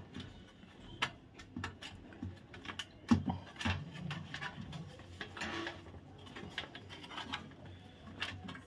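Light, irregular metallic clicks and scraping as the thin iron retaining strip holding a room heater's heating rods is bent and worked loose by hand. There is a sharper knock about three seconds in.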